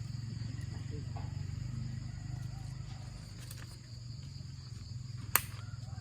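Insects chirring steadily in a high, even drone over a low steady hum, with one sharp click about five seconds in.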